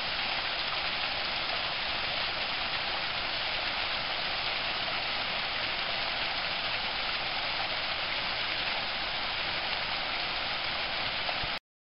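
Small mountain stream splashing over rocks: a steady, even rush of running water that cuts off suddenly near the end.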